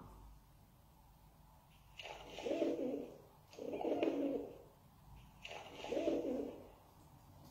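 Recording of a pigeon cooing: three low, rounded coos, each about a second long, the first starting about two seconds in.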